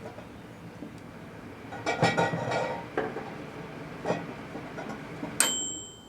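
Microwave oven running with a 400-watt high-pressure sodium bulb inside: a steady hum with several glassy clinks and knocks, loudest about two seconds in. Near the end comes a sharp click with a brief high ring, and the hum stops.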